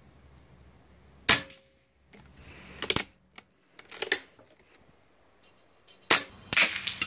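A .25-calibre Ataman M2 PCP air rifle fires about a second in with one sharp crack. Clusters of metallic clicks follow as the action is cycled to chamber the next pellet. A second shot comes about six seconds in, followed by more clicks.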